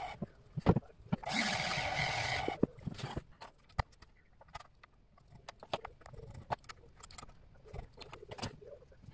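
Scattered sharp metallic clicks and taps of hands working a mini-lathe's three-jaw chuck with its chuck key and seating a small metal part, after a brief stretch of steady motor noise about a second in.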